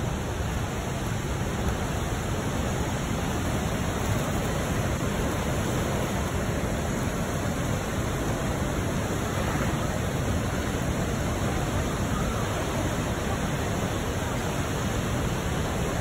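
Steady rush of the Manavgat River's water pouring over its low, wide waterfall and churning past in whitewater.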